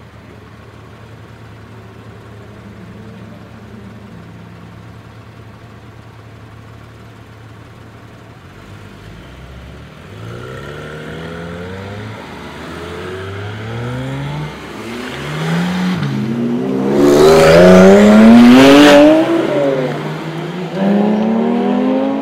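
Porsche 911 engines idling with a low steady hum, then, from about halfway through, one car after another accelerating hard through the gears, the revs rising in steps with a drop at each shift. The loudest run comes about two-thirds of the way through, and another car starts pulling away near the end.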